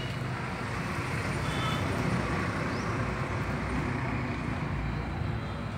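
Steady background hum of road traffic, with no distinct events.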